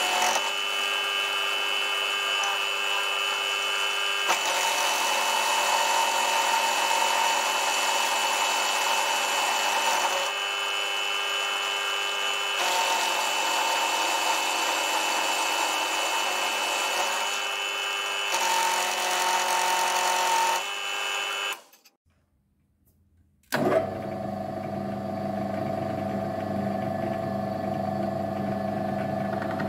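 Milling machine cutting a metal block with an end mill: a steady high tone from the running spindle, with the cutting noise changing every few seconds as passes start and end. About 22 seconds in it drops out to near silence. The mill then runs again with a cup grinding disc spinning in the spindle, a steadier, lower hum.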